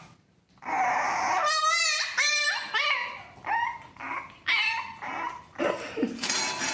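A dog vocalizing: a run of short, pitched calls that bend up and down, starting just under a second in and repeating about every half second to a second.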